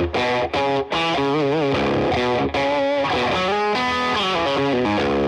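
Music led by a distorted electric guitar playing a wavering melody line, with a few short breaks near the start.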